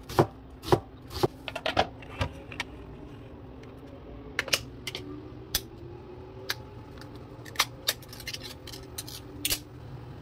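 Kitchen knife chopping an onion on a plastic cutting board, about two sharp chops a second for the first couple of seconds. This is followed by scattered lighter clicks and taps.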